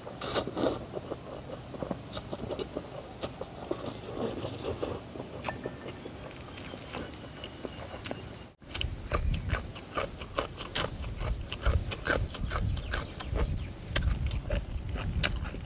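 A man slurping instant noodles and then chewing with wet mouth clicks; after a cut about eight and a half seconds in, more biting and chewing, with wind rumbling on the microphone.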